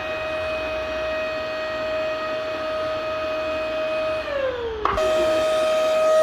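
Vacuum cleaner motor running with a steady high whine over a rush of air. About four seconds in the whine slides down in pitch as if the motor were winding down, a click follows, and the steady whine comes straight back.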